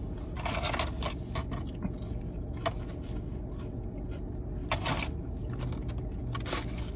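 Eating sounds in a parked car: scattered clicks and scrapes from handling a takeout food box and plastic fork, with chewing, over the steady low hum of the car's air conditioning.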